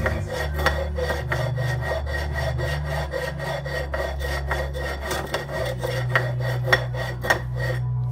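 Carburetor body scraped back and forth on a large flat abrasive grinding stone in quick, even strokes, lapping its warped mating surface flat. The scraping stops shortly before the end.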